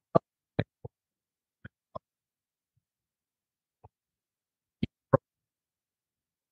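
A voice on a video call keeps cutting out: only short clipped snatches get through, about nine in the first five seconds, with dead silence between them. This is the guest's microphone dropping out on the call.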